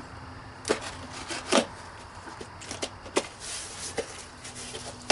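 Cardboard packing boxes being handled and opened: several sharp knocks and taps of cardboard, the loudest about a second and a half in, with scraping and rustling between them.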